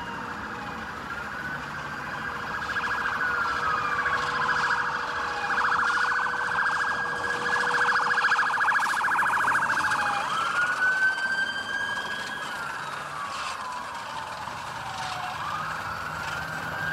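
Police car sirens wailing in slow rising and falling sweeps, more than one at once, switching to a fast warbling yelp for a few seconds in the middle, where they are loudest.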